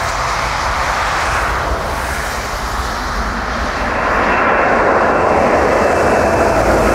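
Airbus A330 twin-jet climbing out at takeoff thrust, its jet engines making a steady roar that grows louder about four seconds in as it passes overhead, with a thin high engine whine on top.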